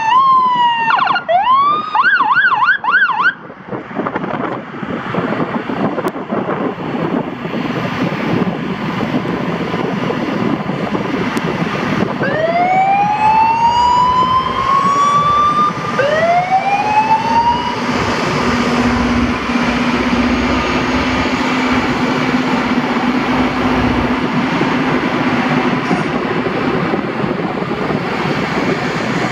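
Loram rail grinder train passing at close range: a steady, loud rumble and grinding noise of its grinding stones working the rail, with two rising whines about halfway through. In the first few seconds a warbling tone rises and falls rapidly.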